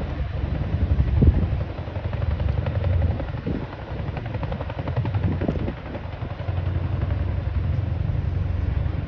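Boeing CH-47 Chinook tandem-rotor helicopters running, a steady low rotor throb that swells and eases a few times.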